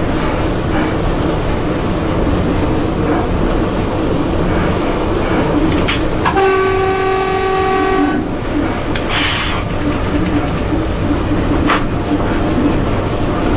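Steady running rumble of an EP1 electric locomotive heard inside its cab while under way. About six seconds in, a horn sounds once for just under two seconds, followed by a short hiss.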